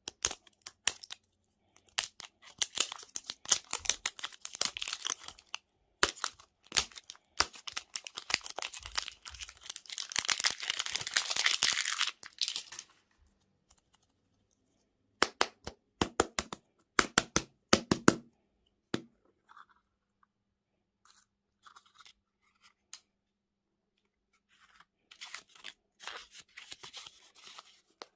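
Plastic candy wrapping crinkling and being torn open, in crackly bursts of clicks that build to the loudest stretch about ten seconds in, then a few sharp snaps, a pause, and softer crinkling near the end.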